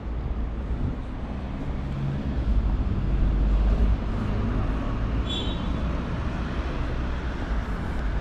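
Road traffic ambience: cars moving and idling along a terminal kerb, over a deep steady rumble, with a brief high-pitched chirp about five seconds in.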